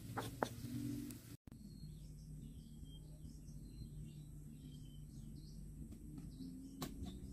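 Faint outdoor ambience with small birds chirping, after two clicks of a metal spoon against the cooking pan near the start.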